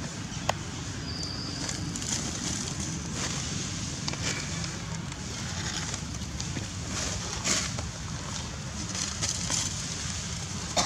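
Outdoor ambience: a steady low rumble with scattered short crackles of dry leaf litter, and a sharp click about half a second in.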